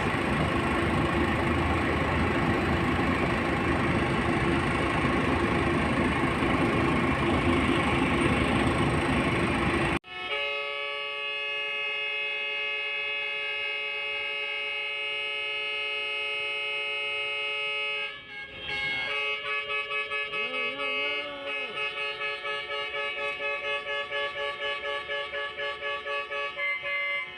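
A loud rushing noise for the first ten seconds. Then several container-truck horns sound together in one steady chord, break off briefly, and carry on in rapid blasts of about two a second. The drivers are honking all at once in protest at the long jam at the port.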